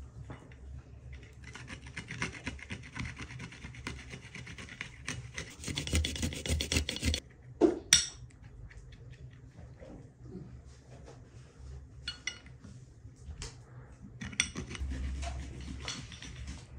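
Fast, repeated scraping and rubbing from hands-on kitchen work, loudest about six to seven seconds in. It breaks off, a sharp knock follows just before eight seconds, and then come a few scattered scrapes and taps.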